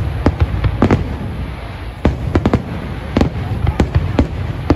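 Fireworks going off: many sharp bangs and cracks in quick, irregular succession over a steady low rumble.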